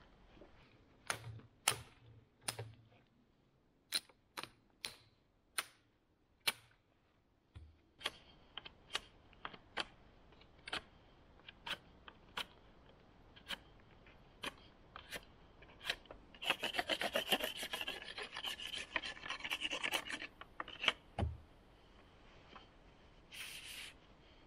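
Knife blade shaving a thin wooden stick, a series of separate scraping strokes and then a few seconds of fast continuous scraping, peeling fine shavings for fire tinder.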